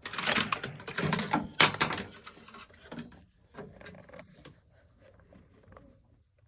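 Small parts of a string trimmer's head being handled and fitted back onto the gear head: a quick run of sharp clicks and clatters for about three seconds, then a few fainter taps.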